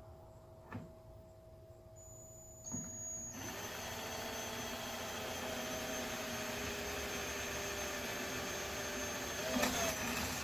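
Electric drill with a small bit drilling a pilot hole: after a couple of light knocks it spins up about three seconds in, runs at a steady whine, grows louder and rougher near the end, then stops.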